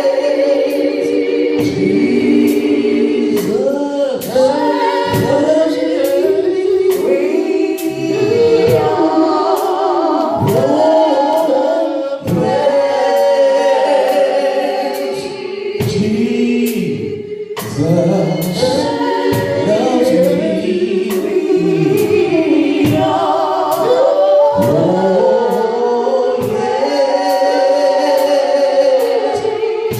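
A choir and congregation singing gospel worship, with faint regular high ticks keeping time under the voices.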